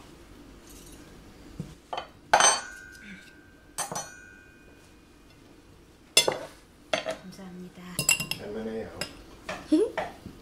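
Metal cutlery clinking against ceramic plates and a bowl. There are a few separate sharp clinks, the loudest about two and a half seconds in with a short ringing tone after it, then a busier run of clatter from about six seconds in.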